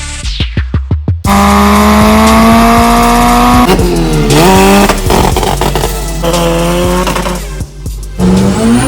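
Honda K20 four-cylinder engine in a mid-engine-swapped Toyota MR2 pulling hard at high revs, its pitch climbing steadily. Around four seconds in the revs drop sharply and climb back, then keep rising. A quick run of crackles or pops comes in the first second, before the loud pull starts.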